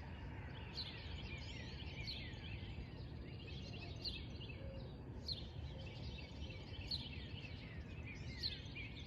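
Several birds chirping and singing in a morning chorus, with short falling notes repeating every second or so, over a low steady background rumble.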